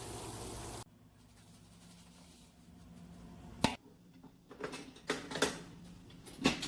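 A steady machine hum, likely a kitchen mixer motor, stops abruptly under a second in. Several sharp clicks and knocks follow, typical of utensils and equipment being handled.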